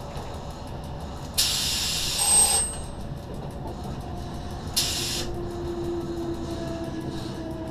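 Z 6400 electric multiple unit running, heard from inside the driver's cab: a steady rumble of wheels on track, broken by two sudden bursts of hiss, the first about a second and a half in and lasting about a second, the second shorter, about five seconds in. After the second hiss a faint steady whine runs under the rumble.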